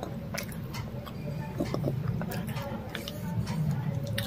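Close-up chewing and biting, with short crisp crunching clicks at an uneven pace over a steady low hum.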